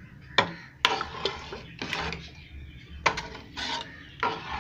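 A spoon stirring thick cooked lentil dal in a cooking pot, scraping and knocking against the pot's sides and bottom in several irregular strokes as garam masala is mixed in.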